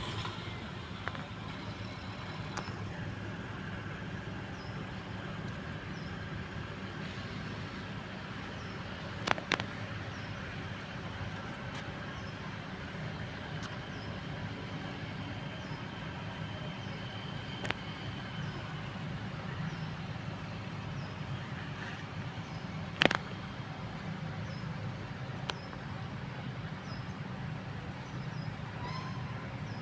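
Tuk-tuk (auto-rickshaw) engine running steadily, with a few sharp knocks over its hum; the loudest knock comes about three quarters of the way through.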